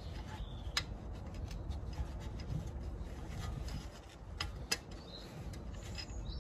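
Rear ABS wheel-speed sensor being worked back into its hub by a gloved hand: faint rubbing and scraping of glove and metal, with a few sharp clicks.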